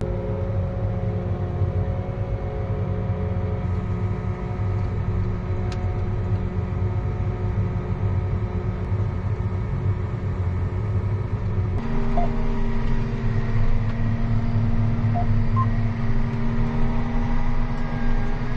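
John Deere 8270R tractor engine running steadily while pulling the seed drill. About twelve seconds in, its note steps up in pitch and gets a little louder as the revs rise.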